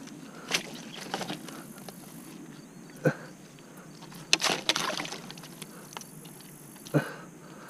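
Handling noises from a channel catfish being unhooked by hand in a landing net: rustling and a few sharp knocks, with the loudest cluster about halfway through.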